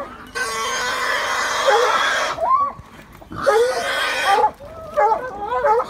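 Wild boar squealing as hounds hold it down: one long squeal lasting about two seconds, a second shorter one about three and a half seconds in, then hounds yelping near the end.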